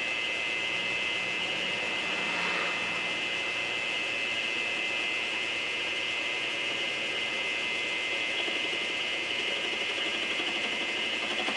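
Lathe with milling attachment running at steady speed, its motor and spindle giving a steady high whine.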